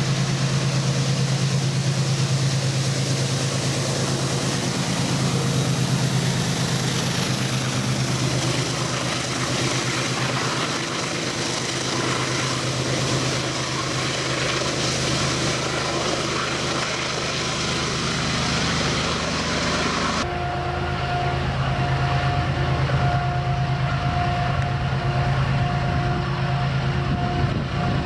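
Diesel-electric freight locomotives running on the line: a steady, loud low engine drone with wheel and rail noise. About twenty seconds in the sound changes abruptly to another train, whose drone carries a steady higher tone.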